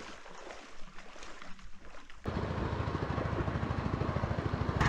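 After a quiet start, a small 8-horsepower single-cylinder petrol longtail boat motor comes in abruptly a little over two seconds in, running steadily with an even, rapid pulse as it drives the catamaran under way.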